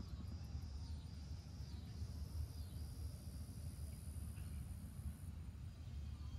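Low steady rumble of a distant BNSF intermodal freight train rolling past, its container cars going by, with crickets chirping and a high steady insect buzz from about two to five seconds in.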